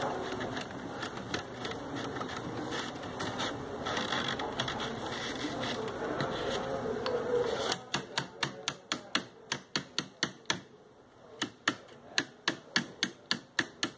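Rattan cane strands being worked into a chair back: a steady scraping and rustling of the strands against each other and the frame. About halfway through it gives way to a run of sharp clicks from the weaving tools and cane, roughly three a second, with a short pause near the end.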